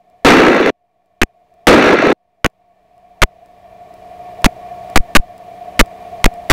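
Aircraft intercom audio cutting in and out. In the first two seconds, two short bursts of wind and engine rush are separated by total silence. After that come a dozen or so sharp clicks over a faint, slowly rising steady hum.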